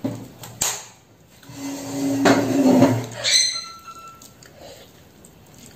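A sharp clink about half a second in, then a mobile phone buzzing loudly for over a second, followed by a short high chime: an incoming message alert.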